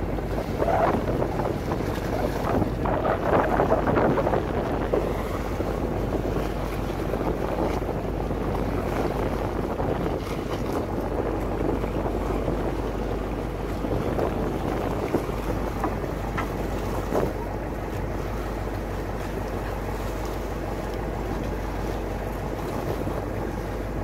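Wind buffeting the microphone over open sea, with water washing against the boats' hulls and a steady low hum underneath. Gusts are louder in the first few seconds.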